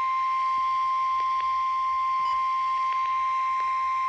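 NOAA Weather Radio warning alarm tone: a single steady, high, continuous tone at about 1050 Hz, heard over a weather radio receiver, with faint crackles of reception static. The tone signals that a warning message is about to follow.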